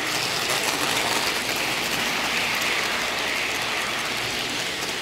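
O gauge model passenger train rolling past on Lionel track: a steady, rapid clatter of metal wheels running over the rails.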